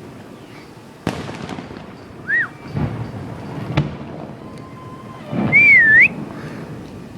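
Fireworks going off: several sharp bangs, one to two seconds apart, mixed with short whistles. The loudest sound is a wavering whistle about five and a half seconds in.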